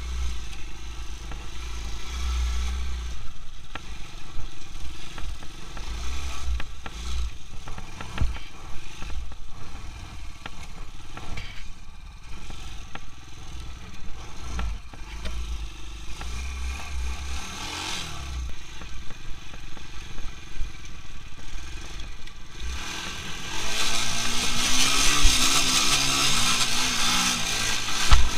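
200 cc quad bike engine running as it rides over a snowy track, with a low rumble underneath. About five seconds before the end the engine speeds up and gets louder as the quad accelerates.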